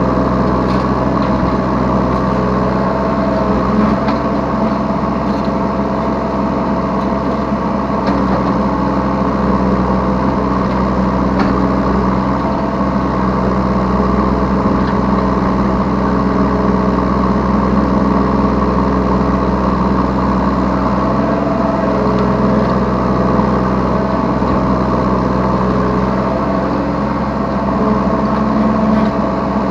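Yanmar B3Σ 3-ton mini excavator's diesel engine running steadily while it works, heard close from the operator's seat, the engine note shifting slightly as the hydraulics take load.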